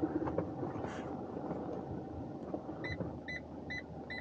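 Van engine running at low speed in the cab. From about three seconds in, a parking-sensor beep repeats about two and a half times a second as the van is manoeuvred into a tight parking space, signalling an obstacle close by.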